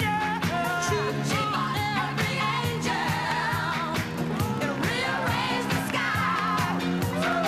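Recorded pop song playing loudly, with sung vocals over a steady dance beat, dulled by a degraded VHS tape recording.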